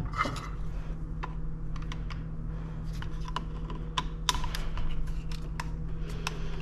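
Irregular small clicks and taps of a tool and metal parts as the original pistol grip is unscrewed from an AR-15's lower receiver, over a steady low hum.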